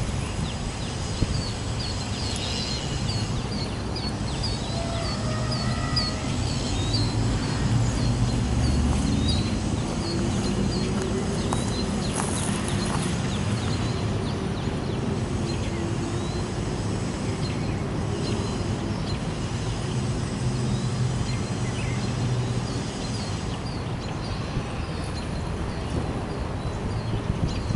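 Steady low rumble of distant GE C44-9W diesel locomotives pulling a freight train slowly, mixed with wind on the microphone. A small bird chirps in quick repeated notes through the first half and again near the end.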